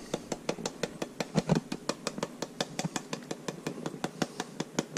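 Container of ground black pepper being shaken over fish fillets: a fast, even run of light clicks, about eight a second.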